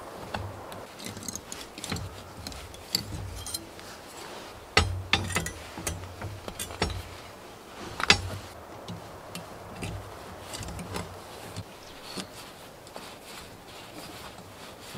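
Steel tie wire being twisted around rebar crossings by hand and with pincers: scattered small metallic clicks, scrapes and clinks, with two sharper clicks, one about a third of the way in and one just past halfway.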